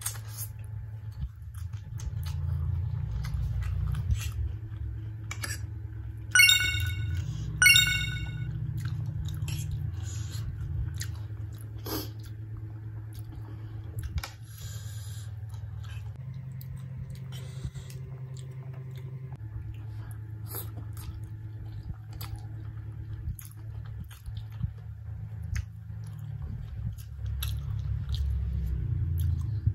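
Close-miked chewing and slurping of spicy Korean instant hot chicken ramen noodles, with many small wet mouth clicks. Two short, high-pitched squeaks stand out loudest, about six and a half and nearly eight seconds in.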